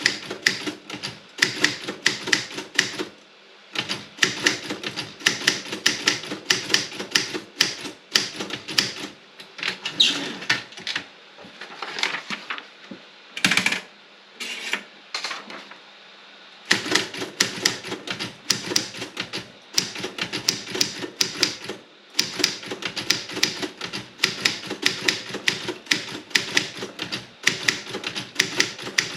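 Typing on a Robotron 24 office typewriter with a wide A3 carriage: quick, irregular keystrokes clacking, with a few short pauses and a slower stretch about halfway through.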